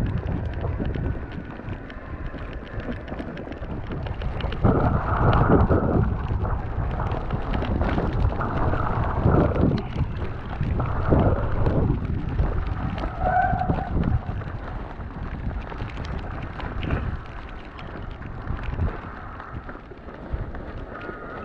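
Wind rumbling on an action camera's microphone while riding an e-mountain bike through snow, with louder gusts about five, nine and eleven seconds in.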